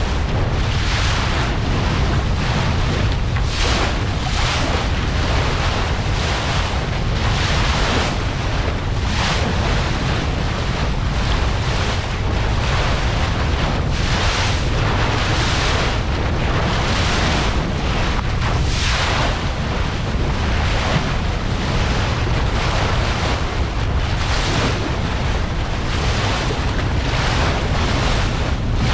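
Bow wave of a Westsail 32 sailboat rushing and splashing as the heeled hull drives through chop under sail, with surges of spray every second or two. Wind buffets the microphone with a steady low rumble.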